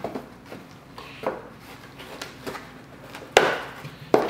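Small cardboard box being opened and handled: the flaps scrape and rustle, with two sharp knocks about three and four seconds in, the first the loudest.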